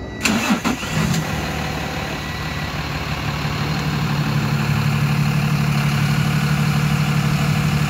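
Heavy vehicle's engine running steadily with a low hum, after a brief clatter as it comes on in the first second.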